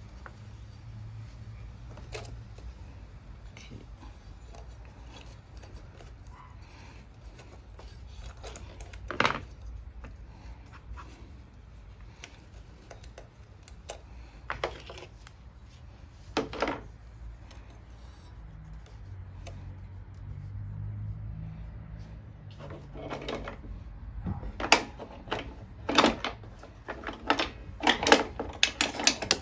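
Hand tools clicking and knocking against the mower engine's metal parts as it is taken apart, scattered at first, then a quick run of sharp clicks near the end.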